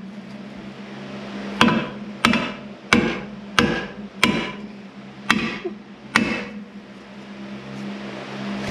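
Hammer blows on the steel of a rusted Jeep Wrangler lower control arm, knocking the seized parts loose: seven ringing metallic strikes, roughly two-thirds of a second apart, starting about a second and a half in. A steady low hum runs underneath.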